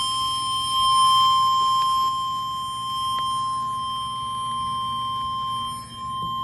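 NOAA Weather Radio warning alarm tone, a single steady high-pitched beep of about 1050 Hz held unbroken through a Midland weather radio's speaker, with a brief dip near the end. It is the alert that signals a warning message is about to be broadcast.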